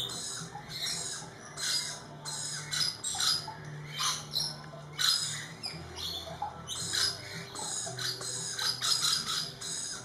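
Lorikeets screeching: short, shrill calls in quick runs, loudest about five seconds in, over a low steady hum.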